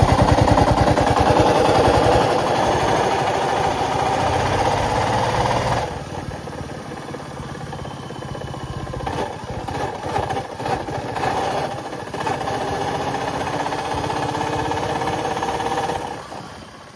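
Royal Enfield Bullet's single-cylinder engine running with an abnormal noise, which the mechanic puts down to a failing engine bearing. It is loudest at first, quieter and more uneven from about six seconds in, steadier again later, and dies down near the end.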